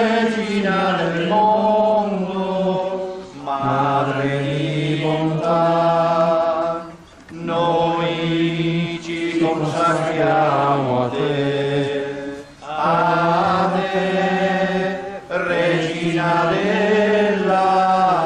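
Voices chanting a slow hymn in long held notes, in phrases of a few seconds with short breaks between them.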